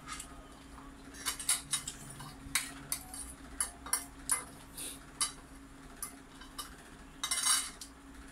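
Spoon and fork clinking and scraping against a bowl while eating: a run of short sharp clicks, then a longer noisier burst near the end.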